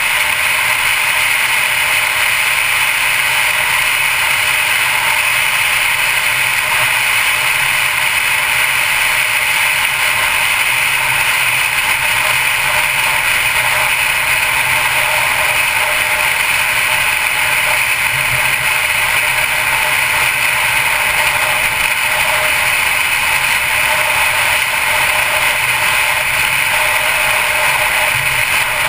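Steady wind and road noise of a 2012 Mercedes-Benz C250 Coupe driving at speed on a highway, an even hiss that does not change.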